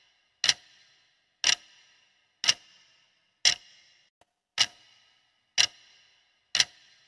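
Clock-tick sound effect of a quiz countdown timer: seven sharp ticks, about one a second, counting down the last seconds of answer time.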